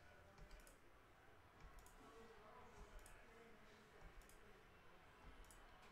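Computer mouse button clicked about once a second, faint quick clicks, each a press and release, as a web page's 'Again' button is pressed repeatedly, over a low room hum.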